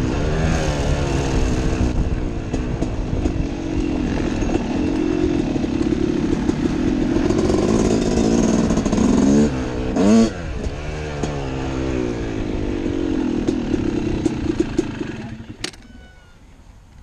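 Dirt bike engine running under the rider, revs rising and falling, with a quick rev-up about ten seconds in. Near the end the engine is shut off and its sound stops abruptly.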